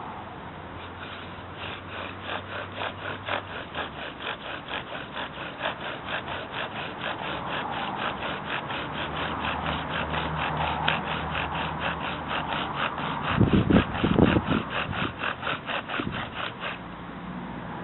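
Fig-wood bow drill being worked for a friction fire: the spindle rubs in the hearth board with each back-and-forth stroke of the bow, an even rasping about three strokes a second, stopping near the end. A few louder knocks come about two-thirds of the way in.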